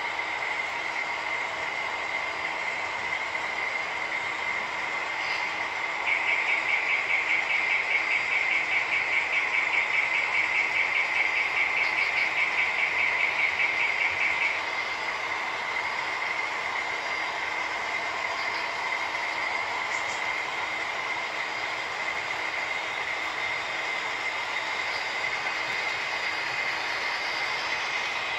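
An HO scale model diesel switcher and its freight cars running past on the track, making a steady high whine. For about eight seconds, as the locomotive goes by, the sound is louder and pulses rapidly. It then settles back to the steady whine as the freight cars roll past.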